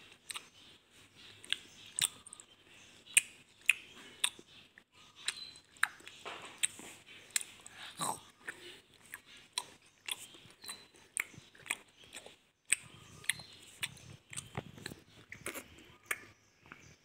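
Close-miked chewing of soft gummy pizza candy: wet, sticky mouth sounds with irregular sharp lip smacks.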